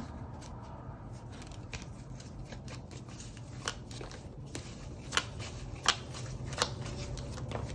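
Tarot cards being handled: scattered light clicks and snaps, about a dozen, over a low steady hum.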